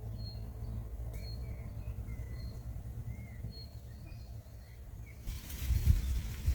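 Small birds chirping: short high calls repeated every half second or so, over a steady low rumble. About five seconds in, a rush of hissing noise with low thumps comes in and covers the calls.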